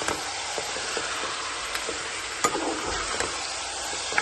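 Mutton pieces frying in hot ghee in a karahi, a steady sizzle, with a few sharp knocks of a spoon against the pan as the meat is stirred.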